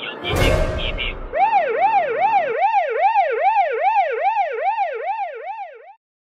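A sudden crash-like hit, then a siren-style alarm sound effect wailing up and down about twice a second, which cuts off abruptly. It is the comic alarm for a mishap: the e-reader's screen has cracked.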